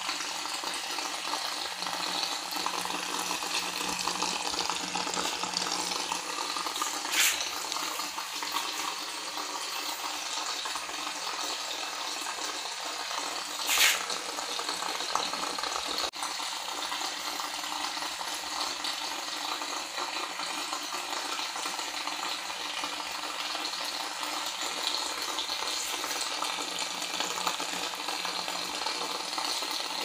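Mini-pump-driven plastic-bottle fountain running, its thin jets of water splashing steadily back into the basin. There are two short, louder sounds about 7 and 14 seconds in.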